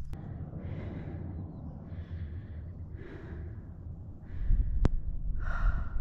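A woman breathing close to the microphone, about five breaths a second or so apart, over a low wind rumble that gets louder near the end. A single sharp click comes near the end.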